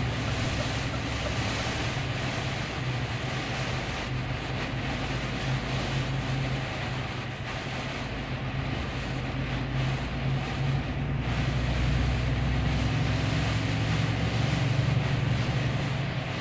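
Truck's diesel engine droning steadily inside the cab, under the even hiss of heavy rain on the truck. The engine note grows a little louder about twelve seconds in.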